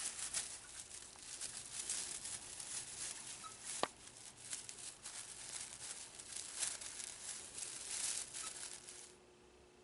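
Irregular rustling and crinkling from the 32-inch fiber optic tree and its packaging being handled, with one sharp click a little before four seconds in. The rustling stops about nine seconds in.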